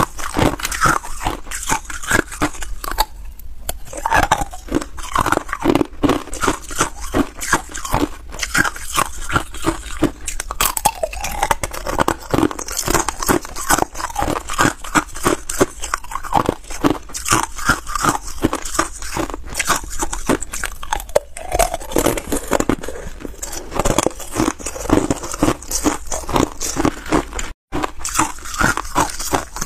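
Hard ice cubes being bitten and crunched between the teeth close to a clip-on microphone: a dense, continuous run of sharp cracks and crackles, with ice cubes clinking and scraping as they are picked from a silicone mould.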